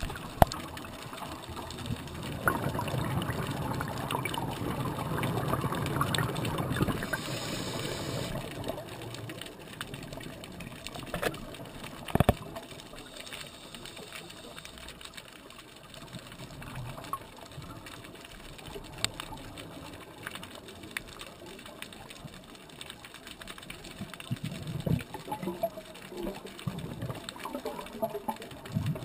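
Scuba regulator breathing heard underwater: a long rush of exhaled bubbles, then a quieter stretch, then bubbles again near the end. A single sharp knock comes about twelve seconds in.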